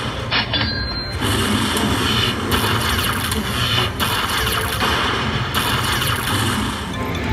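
Lightning Link slot machine sounds over casino floor noise: a dense, busy mix of electronic machine sounds that shifts every second or so.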